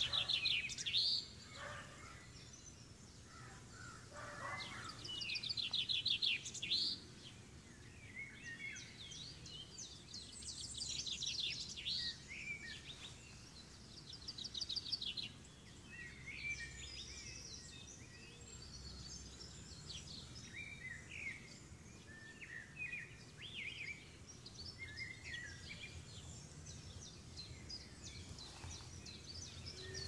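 Several songbirds singing and calling, with repeated rapid trills and chirps, the loudest bursts about a second in and around five to seven seconds in. A low steady background rumble runs beneath them.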